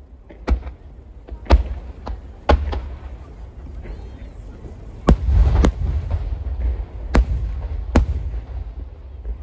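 Aerial firework shells bursting overhead in quick succession: sharp booms every second or so, with a rumble between them. The booms come thicker and louder about five seconds in.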